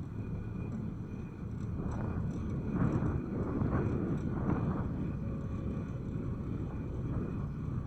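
Steady low engine rumble that swells for a few seconds in the middle.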